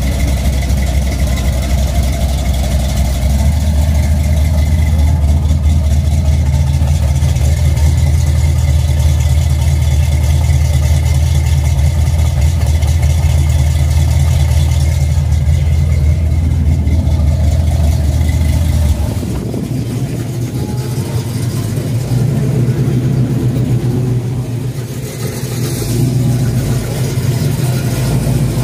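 A silver 1980s Chevrolet Monte Carlo's engine idling loudly and steadily with a low exhaust note. About two-thirds of the way through it gives way suddenly to a somewhat quieter car engine running as another car rolls slowly past.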